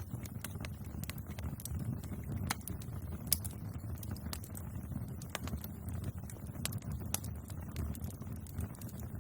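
Wood bonfire burning: irregular sharp crackles and pops over a low steady rumble of flames, with one louder pop a little past a third of the way through.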